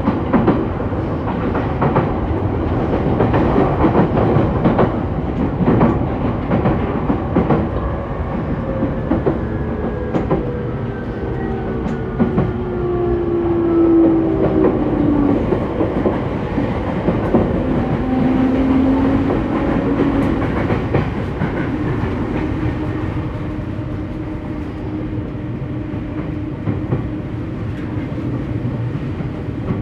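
JR East E231-800 series electric train heard from inside the car, above its traction motor: steady rolling noise with wheels clicking over rail joints. Through the middle the motor's whine falls in pitch as the train slows, then settles to a steady low tone.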